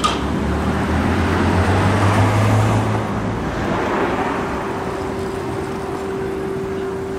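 Street traffic: a car passes close by, swelling about two seconds in with a low engine rumble and tyre noise, then easing off, over a faint steady hum.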